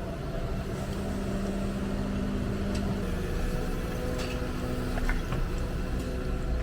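Hyundai 300LC excavator's diesel engine and hydraulics running under working load, heard from inside the cab: a steady hum whose pitch shifts about three seconds in, with a few light knocks and clicks from the machine near the middle.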